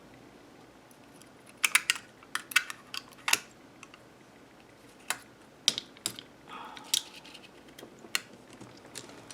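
Irregular sharp clicks and light taps of small tools and parts being handled during a calculator repair, some in quick clusters and others single.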